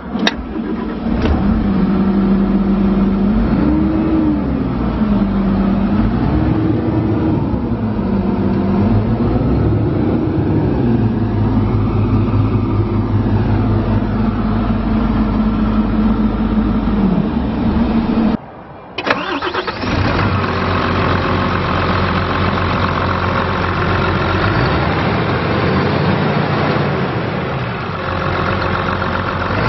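Diesel engine of an IHI IC75 crawler carrier running and being revved up and back down several times. It breaks off briefly a little past halfway, then runs on more steadily with one more rev near the end.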